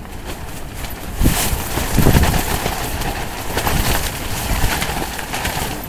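Storm wind gusting against a nylon dome tent, the tent fabric flapping and snapping, with wind buffeting the microphone in heavy low rumbles that are strongest about two seconds in.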